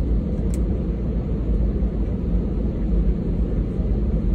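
Cabin noise of an Airbus A320 taxiing: the steady low rumble of the airliner's engines heard from inside the cabin, with one faint click about half a second in.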